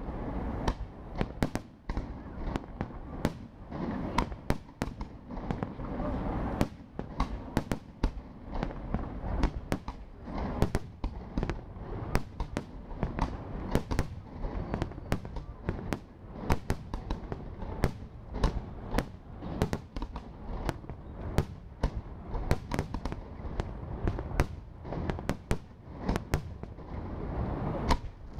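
Fireworks display: aerial shells bursting in a continuous rapid series of sharp bangs, several a second, over a low rumble.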